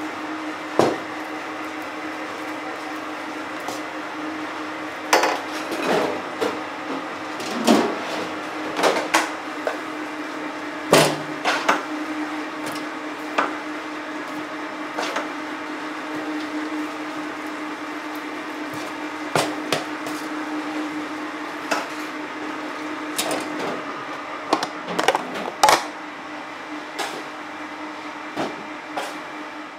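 Curry roux factory machinery running with a steady hum, overlaid by irregular sharp clacks and knocks from the production line.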